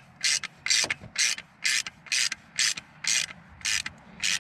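Socket ratchet clicking in short, even bursts about twice a second as it winds down the screw of a door-hinge spring compressor, compressing the door hinge spring.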